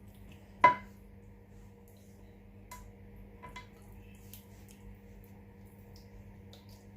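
Hands working pepper marinade over a raw tilapia in a dish: one sharp knock with a brief ring a little under a second in, then a few faint clicks, over a steady low hum.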